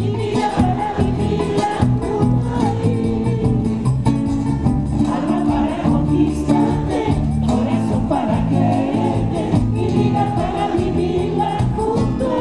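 Live music: a woman singing into a microphone over acoustic guitar accompaniment.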